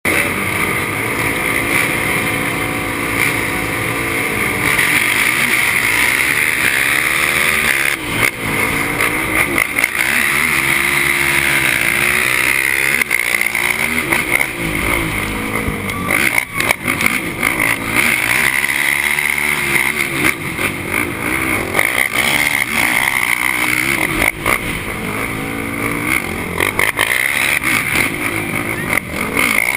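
Racing quad (ATV) engine at full throttle, heard onboard, revving up and dropping back again and again as it accelerates and shifts, over a steady rush of wind and dirt noise.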